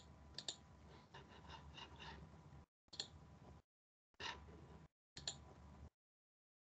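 Near silence on a video-call line that cuts out to dead silence several times, with a few faint, sharp clicks, about one every second.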